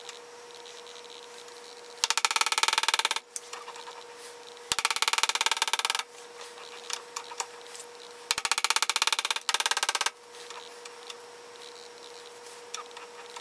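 Gears and lead screw in a Hendey lathe's quick-change gearbox turned by hand, the gear teeth giving a rapid clicking rattle in three bursts of about a second each. A faint steady hum runs underneath.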